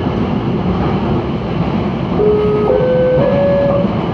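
Inside a moving electric commuter train: steady rumble of the wheels on the rails, with a traction-motor whine that starts about two seconds in and steps up in pitch twice.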